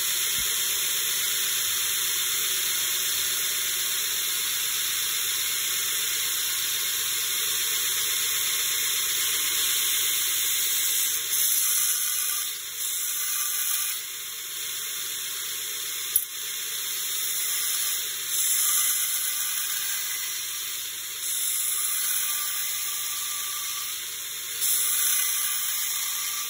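KMT belt grinder running with a 40-grit belt while a Kh12MF tool-steel knife blade is ground against it, a steady hiss of abrasive on steel. From about eleven seconds in, the grinding swells in repeated louder passes of a second or so, with one sharp click near the middle.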